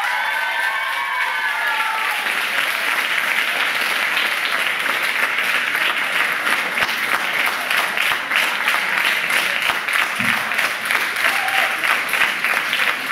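Audience applauding: many hands clapping in a dense, steady run.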